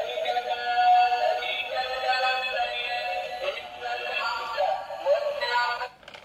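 Battery-operated toy camel playing an electronic song with a synthetic singing voice through its small speaker, thin with no bass. The song cuts off suddenly near the end.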